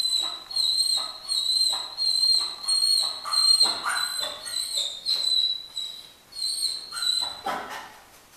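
German shepherd whining in a high, almost unbroken tone, with short breathy pulses about twice a second, fading out about seven seconds in.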